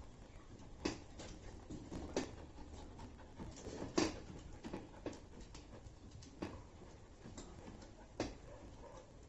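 Belgian Malinois dogs moving about inside a metal cage: irregular knocks and taps of paws and bodies on the plastic slatted floor and against the cage, the loudest about four seconds in.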